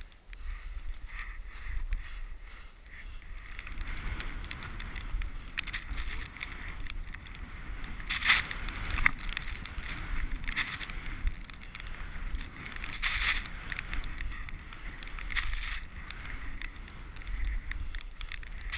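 Skis hissing and swishing through deep powder snow on a fast descent, with a low rumble of wind on the microphone. Several louder swishes come midway as the skis carve turns and throw up snow.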